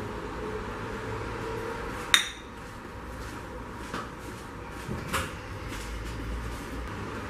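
Kitchenware clinking: one sharp metallic clink with a short ring about two seconds in, then a few fainter knocks, over a steady background hiss.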